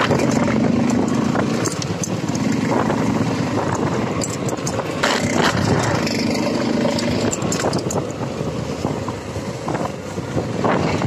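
A motorcycle fitted with a homemade silencer, its engine running steadily as it is ridden.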